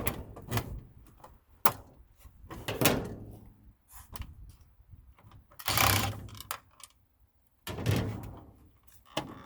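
A series of knocks, thunks and scraping clatter, about six separate bursts with short pauses between, from sheet-metal furnace parts being handled and shifted while the furnace is taken apart.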